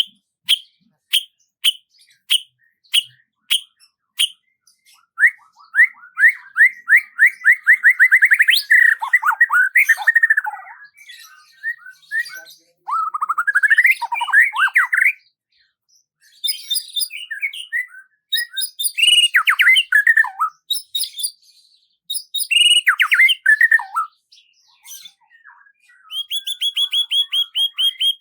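Songbird singing. It opens with a run of sharp chip notes, about two a second, then moves into varied warbled phrases broken by fast trills, and finishes with a long rapid trill near the end.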